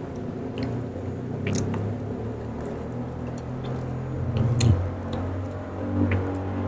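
Close-miked chewing with wet, squishy mouth sounds and a few sharp clicks, over a low steady drone.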